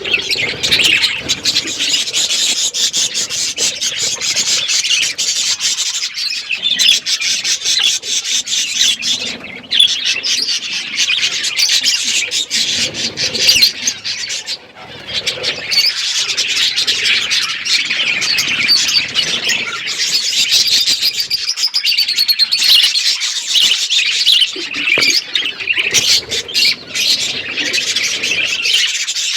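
Budgerigars chirping and chattering nonstop in a dense, busy warble.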